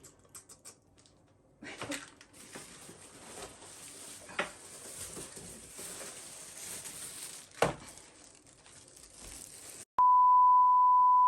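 Plastic packaging rustling and crinkling with a few sharp clicks, which stops abruptly and gives way, near the end, to a loud, steady single-pitch electronic beep.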